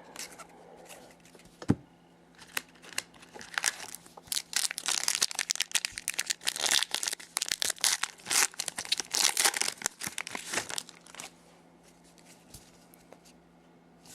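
A trading-card pack wrapper being torn open and crumpled. There is a sharp tap about two seconds in, then several seconds of crackly tearing and crinkling that stops a few seconds before the end.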